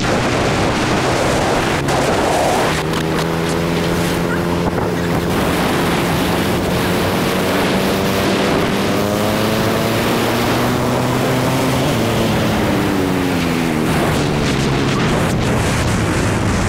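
Motorcycle engine running while riding, its note slowly rising and then falling back a few seconds before the end, under heavy wind noise on the microphone.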